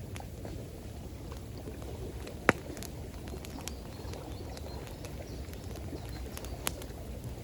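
Wood campfire crackling with scattered sharp pops, one much louder snap about a third of the way in, over a steady low rush of water.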